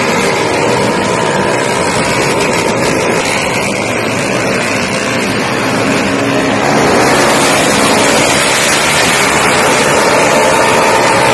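Loud engines of small drag-racing underbone motorcycles running, getting louder about seven seconds in.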